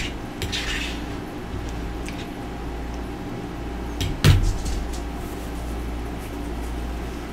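A single sharp knock about four seconds in, over a steady low hum, with a brief rustle near the start.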